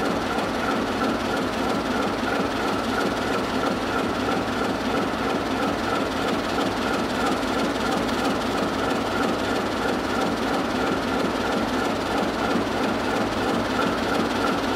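Diesel engines of a pair of ČD class 751 locomotives running steadily without exhaust silencers, giving a loud, even exhaust rumble with a fast low pulsing beneath it.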